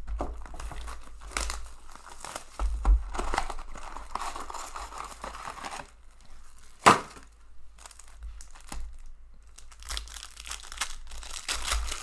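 Plastic shrink wrap crinkling and tearing as a sealed box of hockey cards is opened and its packs pulled out, then a foil card pack being handled and torn open. A single sharp snap about seven seconds in is the loudest sound.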